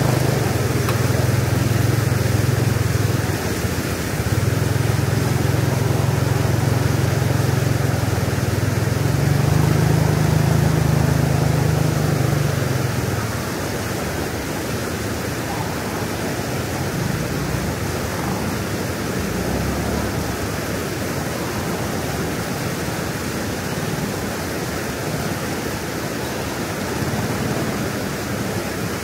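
Steady rush of floodwater flowing over an embankment, with a low rumble on top for about the first thirteen seconds that dips briefly near the start and then drops away.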